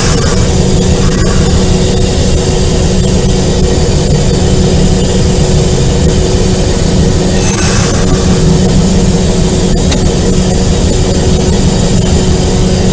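Alco RS8 diesel locomotive running under way, heard from its cab doorway: a loud, steady diesel rumble with a constant hum over it. Two short, high hisses come through, one at the start and one about seven and a half seconds in.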